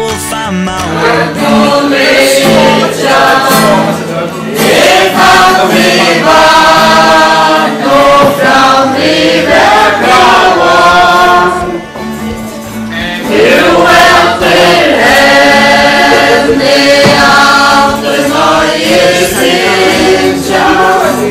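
A group of people singing a song together, many mixed voices, with a short break about halfway through.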